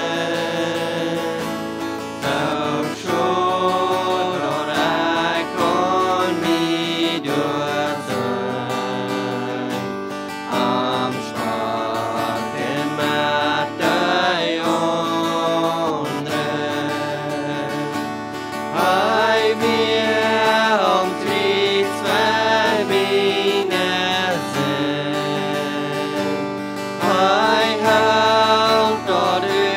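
A woman and a man singing a worship song together, accompanied by a strummed acoustic guitar.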